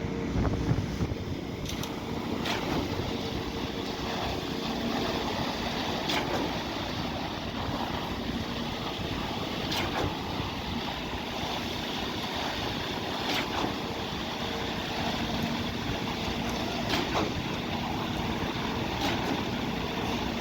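Concrete pump running steadily with wind on the microphone, with a sharp knock about every three and a half seconds as the pump changes stroke.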